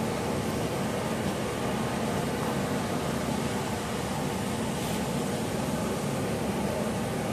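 Steady background noise, an even hum and hiss with no distinct events, like a fan or distant traffic; the crawling snail itself makes no sound that is heard.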